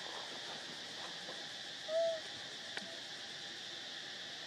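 Steady high buzz of insects, with one short hooting call about two seconds in and a faint click just after.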